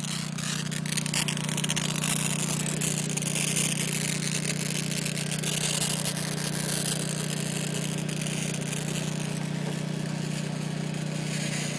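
Multiplaz portable plasma torch running: a steady low hum with a hiss over it that swells in the middle and eases off.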